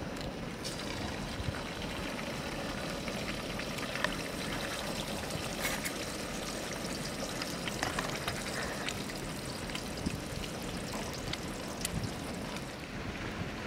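Eggs cooking in a hot pot over a small gas burner: a steady hiss with scattered sharp clicks as eggs are cracked and dropped in one after another.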